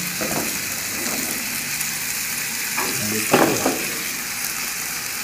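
Calabresa sausage and tomato sauce sizzling in a metal pan with a steady hiss, while a metal spoon stirs and scrapes the pan a few times, most clearly about three and a half seconds in.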